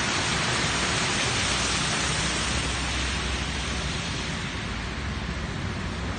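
A car's tyres ploughing through floodwater on a road, giving a loud, even spraying hiss that eases a little after about three seconds.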